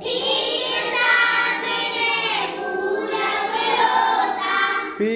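A class of children chanting a line of a Hindi rhyme together in unison, many voices at once, echoing the line a lead boy has just sung.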